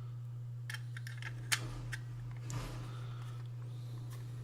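Light plastic clicks and handling of a PIR motion sensor's plastic case and battery cover, with one sharp click about one and a half seconds in and a brief rustle near the three-second mark, over a steady low hum.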